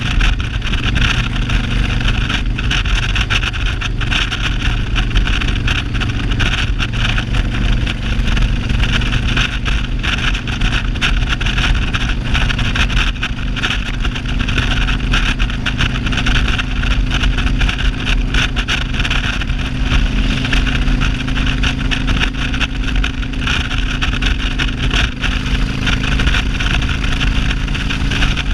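Cruiser motorcycle engine running steadily at cruising speed, heard from the rider's seat with wind rushing over the microphone.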